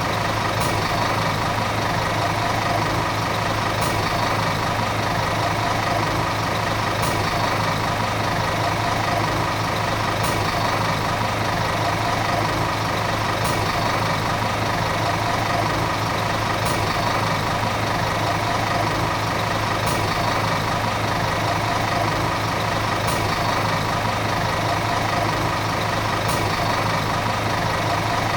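Volvo city bus diesel engine running at a steady, unchanging speed, with a faint click about every three seconds.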